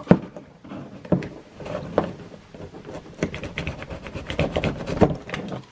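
Close handling noise of hands working on a retractable dog leash and its cord: irregular small clicks, taps and rubbing.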